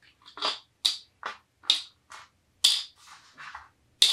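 Small colored wooden beads clicking and rattling as they are dropped one after another into a small clear container, about eight sharp clicks at uneven spacing.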